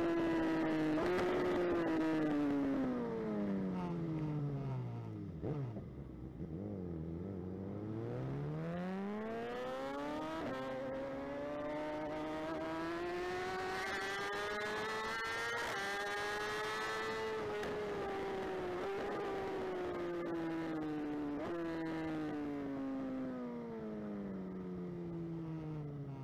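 BMW S1000RR superbike's inline-four engine heard onboard. The revs fall away steeply over the first five seconds to a low drone, then climb again through upshifts at about ten and sixteen seconds in, and slowly wind down over the last several seconds.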